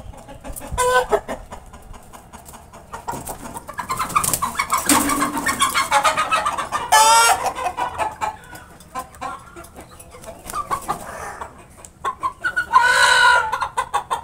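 Aseel chickens clucking and calling in short bursts, busiest midway, with a longer, louder call about a second before the end.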